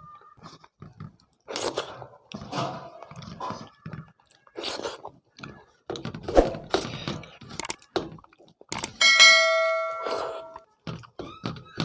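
Close-up eating sounds: a person chewing and smacking on a mouthful of rice and curry, with irregular short clicks and wet mouth noises. About nine seconds in, a bright ringing tone lasts about a second and a half.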